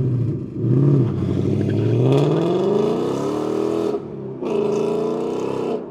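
2018 Ford Mustang GT's 5.0-litre V8 through its quad-tip exhaust, accelerating hard away from a standstill: the engine note climbs steeply, breaks off briefly about four seconds in, then runs on high before cutting off near the end.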